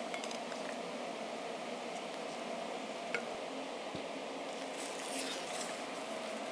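Steady hum of food-factory machinery, with a couple of sharp clicks and, about five seconds in, a brief rustle of a plastic pouch being handled.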